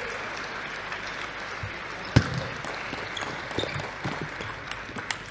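Table tennis rally: the ball clicks off the bats and the table at irregular intervals, with one much louder knock about two seconds in, over a steady hall crowd murmur.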